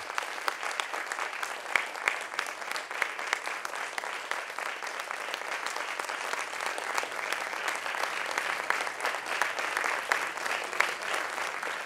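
Crowd applauding: many hands clapping steadily.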